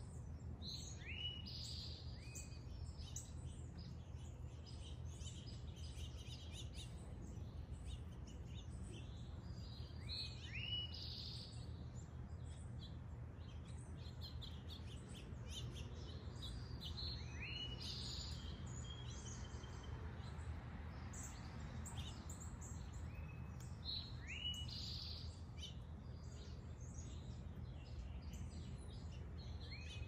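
Small songbirds calling around backyard feeders: many short, sharp chirps, some in quick runs, over a steady low background hum.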